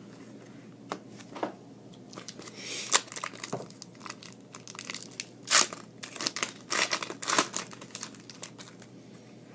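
Trading-card pack wrapper being torn open and crinkled in the hands, with irregular crackles and a few sharper, louder crinkles.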